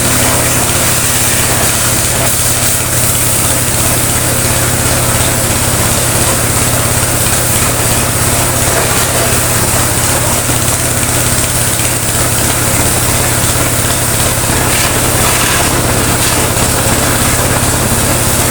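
Pressure washer running steadily, its pump motor giving a low hum under the hiss of the high-pressure water jet from the spray lance.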